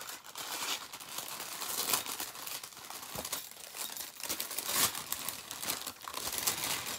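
Packaging rustling and crinkling as a small kit is unwrapped by hand, with louder crinkles about two seconds in and again near five seconds.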